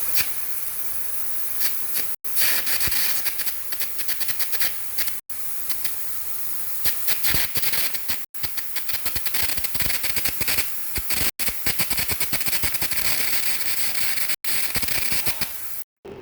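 Welding arc sizzling and crackling: a steady high hiss full of sharp irregular pops, broken by brief silent gaps about every three seconds.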